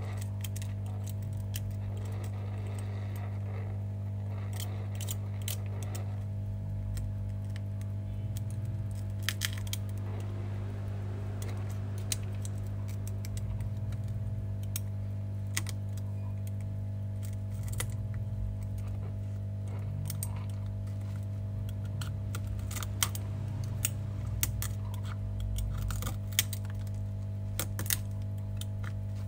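Hot-air gun blowing with a steady low hum while a metal blade scrapes and chips broken back glass off an iPhone 12 mini, giving scattered sharp clicks and glassy clinks, more of them in the second half.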